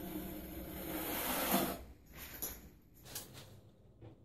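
Steel notched trowel scraping through wet thin-set mortar on a wall, combing it into ridges. One long stroke grows louder for almost two seconds, then a few shorter scrapes and a sharp click near the end.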